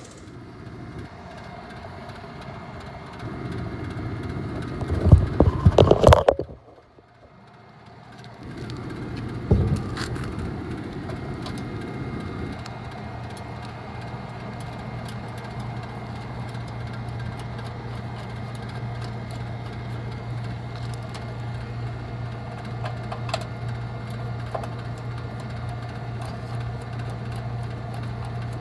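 Steady low hum of running HVAC equipment, with loud handling knocks and rustling about five to six seconds in and a sharp click a few seconds later.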